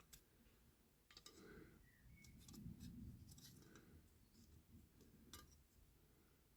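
Near silence, with a few faint clicks and light handling noises from a small diecast toy coach being turned over and its parts fitted.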